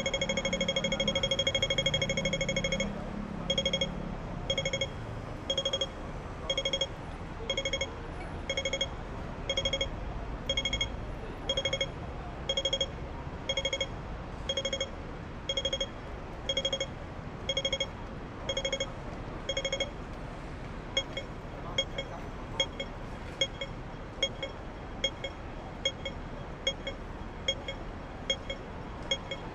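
Pedestrian crossing signal beeping: a fast stream of beeps that changes about three seconds in to single beeps about once a second, the rapid walk signal giving way to the slow wait signal. The beeps turn shorter and slightly quicker about twenty seconds in.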